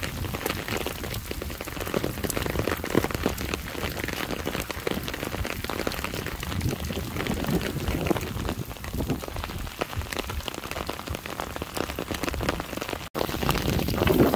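Rain falling on a wet asphalt road: a steady hiss of many small drop impacts splashing on the surface, cut off for an instant near the end.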